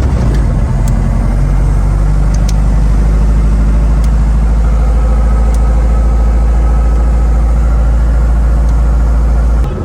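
Robinson R22 helicopter's four-cylinder Lycoming piston engine running steadily and loud just after start-up, heard from inside the closed cabin.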